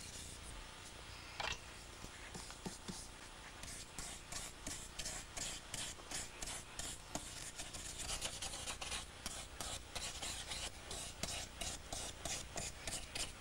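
Lacquer brush drawing the urushi top coat (uwanuri) over a lacquerware vessel: faint dry rubbing strokes, sparse at first, then settling after a few seconds into a quick regular run of about two to three strokes a second.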